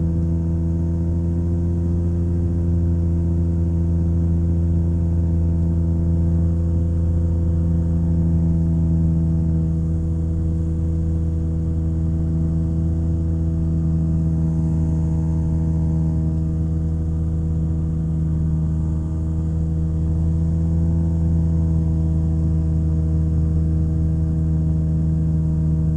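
Rotax 582 two-stroke twin engine and propeller of a Chinook Plus 2 ultralight running at steady cruise power in flight, a constant even drone.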